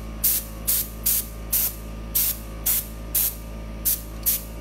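Air compressor blow nozzle giving short, quick puffs of air, about two a second, over a steady low hum: pulsed blasts that push the wet paint around on the surface.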